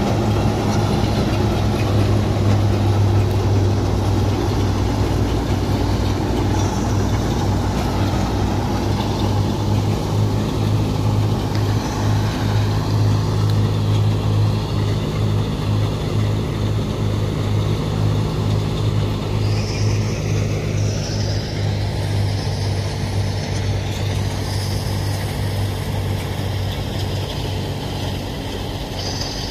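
Punni back-to-back multi-crop thresher running steadily under load, its drum and blower whirring over the drone of the tractor engine that drives it, growing a little fainter toward the end.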